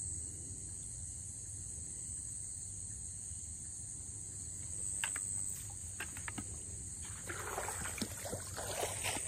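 Steady high-pitched chirring of crickets over a low rumble. From about five seconds in come scattered clicks, then rustling and splashing as someone wades through tall grass in shallow water, growing toward the end.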